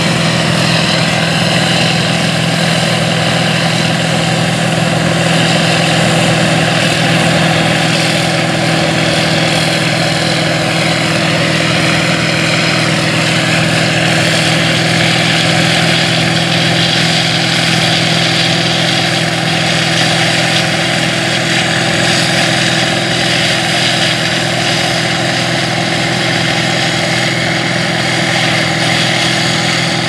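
White 9700 combine harvester running steadily under load while harvesting soybeans: a constant low engine drone with a dense, even mechanical hiss over it.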